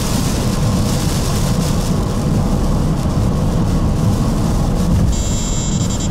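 Heavy rain and road spray on a car driving down a soaked highway, with a deep, steady rumble of tyre and wind noise. About five seconds in, a high electronic tone starts and breaks into short beeps.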